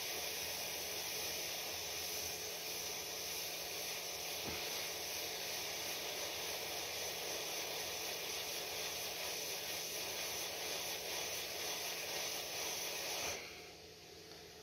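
Steady hiss of a hot air rework gun blowing, which cuts off suddenly near the end.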